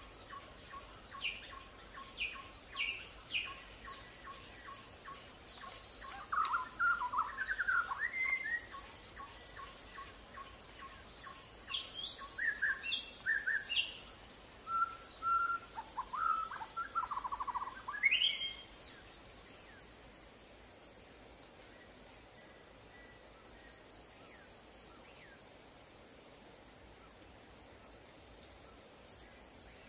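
Wild birds calling over a steady high drone of insects: a few sharp falling notes in the first few seconds, then a run of chirps and warbled calls, after which only the insect buzz is left.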